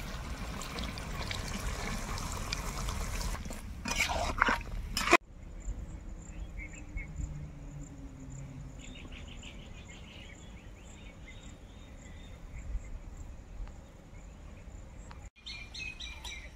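Chicken curry sizzling in a steel wok as ground cashew paste goes in and is stirred, with a few scraping clatters about four to five seconds in. It then cuts off suddenly to a quieter field ambience: a steady high insect drone with a few bird chirps.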